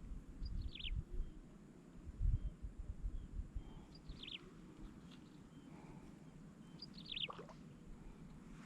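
A bird calling in a swamp, each call a quick falling run of high notes, heard three times about three seconds apart. Low rumbles sound in the first couple of seconds.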